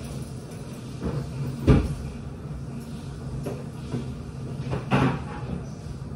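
Several clunks and knocks of metal locker doors and belongings being handled, the loudest about two seconds in and another sharp one about five seconds in, over a steady low hum.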